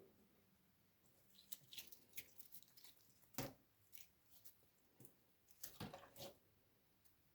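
Slime being squished and handled, giving quiet, irregular sticky clicks and small pops, with one sharper snap about three and a half seconds in and another cluster near six seconds.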